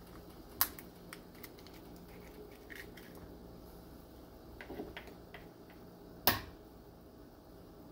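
Water boiling in a frying pan, a steady low bubbling. Over it come two sharp cracks of egg shell breaking, about half a second in and again past six seconds, with a few lighter ticks and taps between.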